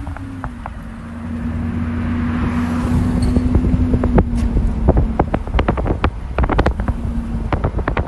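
Road traffic passing, a car swelling by about two to three seconds in, with wind rumbling and buffeting on the microphone.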